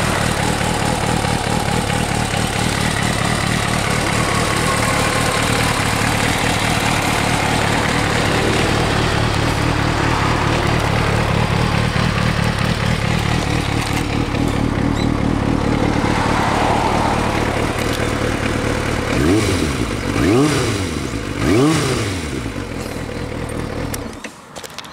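Kawasaki ZRX400's inline four-cylinder engine idling steadily through a WR'S aftermarket exhaust. Near the end the throttle is blipped three times in quick succession, each rev rising and falling back to idle. Then the engine is switched off and cuts out abruptly.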